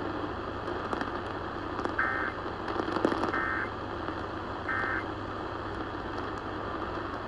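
Three short, identical buzzy data bursts about a second apart: the Emergency Alert System end-of-message (SAME EOM) tones that close a NOAA Weather Radio warning. They sound over a steady hiss of radio static with faint crackling.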